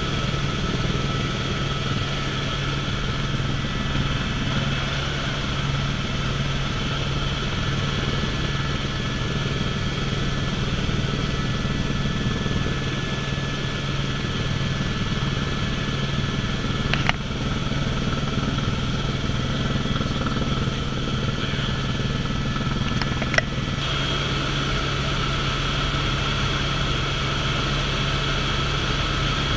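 Helicopter in flight heard from inside the cabin: a steady drone of the rotor and turbine engine with a constant high whine. Two brief clicks, about halfway and two-thirds of the way through.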